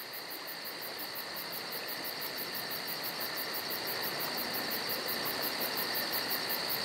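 Insects, crickets-like, chirping in a steady very high pulsing rhythm of about five pulses a second over a steady hiss. It grows slowly louder.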